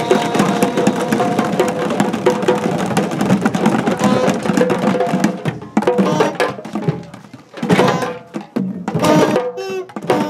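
A group of children drumming with sticks on djembes and upturned plastic buckets, playing a dense, fast samba-style rhythm. About halfway in, the playing thins out into scattered separate hits with short gaps.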